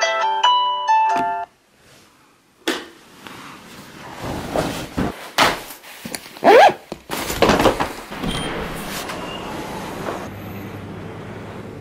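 A smartphone alarm's marimba-style tune plays and stops about a second and a half in. After a short silence comes a thud, then a suitcase being handled with loud scraping and rustling, and a low steady hum near the end.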